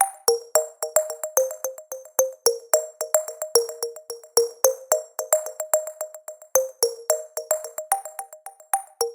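Background music: a light electronic track of quick, short plucked or struck notes in a steady beat.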